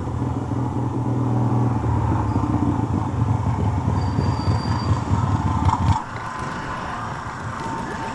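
A vehicle engine running with a deep, steady rumble that stops abruptly about six seconds in.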